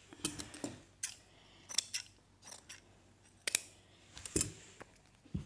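Tailor's scissors snipping, a string of about ten short, sharp cuts at uneven intervals.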